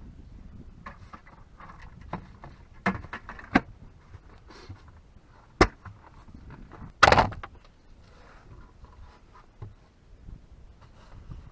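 Knocks, clicks and clunks of gear being handled at a car, with a louder door-like thud about seven seconds in.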